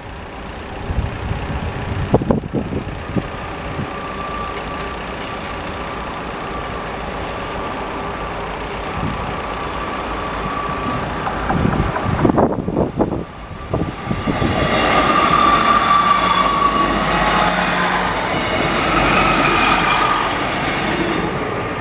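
First Great Western diesel multiple unit approaching and passing close by on the rails: engine running and wheels on the track, growing much louder a little over halfway in and loudest near the end.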